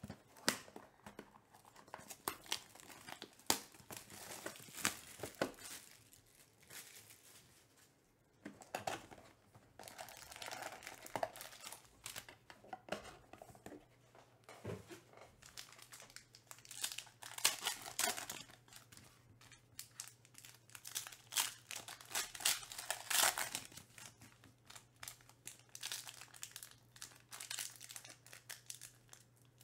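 Foil wrappers of Panini Elite Extra Edition baseball card packs crinkling as the packs are handled and stacked, with sharp taps and clicks, and near the end the crackle of a pack being torn open.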